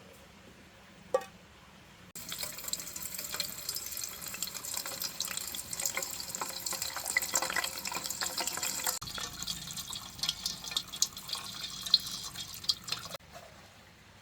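Water running from a tap and splashing into a sink. It starts about two seconds in, changes in flow partway through, and cuts off about a second before the end, after a single knock early on.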